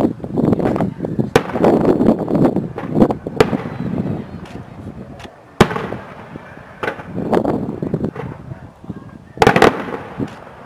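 Aerial firework shells bursting: a string of sharp bangs with crackling in between, the loudest about five and a half seconds in and a quick cluster of bangs near the end.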